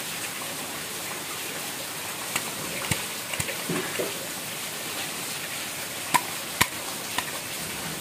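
A thin plastic bag crinkling and rustling as it is handled, with a scatter of sharp clicks and taps, the two loudest about six seconds in, over a steady hiss.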